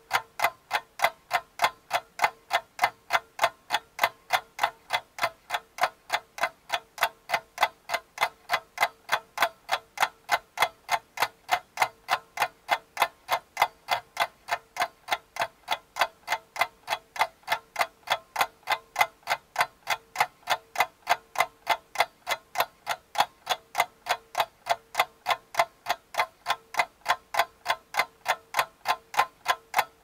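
Clock ticking in a steady, even rhythm, about three ticks a second.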